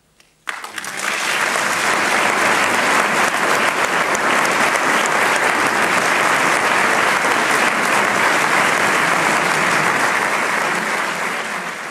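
Concert audience applauding: the clapping breaks out suddenly about half a second in, holds steady as a dense crackle, and eases slightly near the end.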